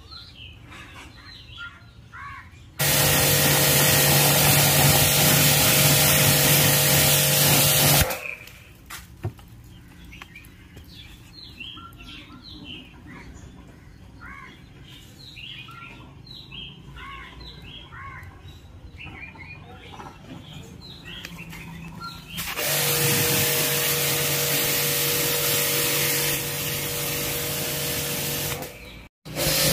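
Pressure washer spraying water in two long stretches, a steady hiss of spray over the hum of its motor: one starts about three seconds in and runs some five seconds, the other starts a little past the middle and stops just before the end. Between them, birds chirp over and over.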